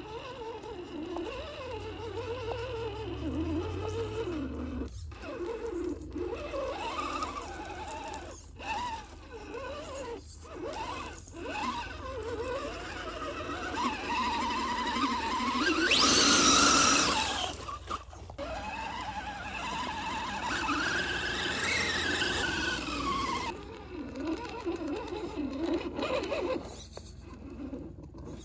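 Scale RC crawler's electric motor and gear train whining, its pitch rising and falling with the throttle as it crawls through mud. About sixteen seconds in, a louder rushing noise lasts about two seconds.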